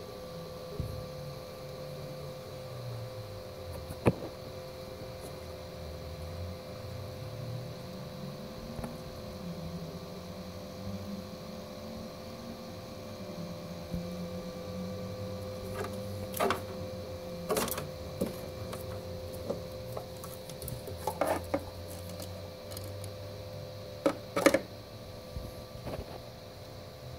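Small 12-volt cooling fan inside the RC tank's hull running with a steady hum, under a lower drone that slowly wavers up and down in pitch. A few sharp clicks and knocks cut in, one about four seconds in and several in the second half.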